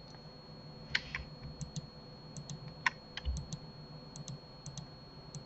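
Scattered clicks from a computer keyboard and mouse, several in quick pairs, with a louder click about a second in and another near three seconds in, over a faint steady electrical whine.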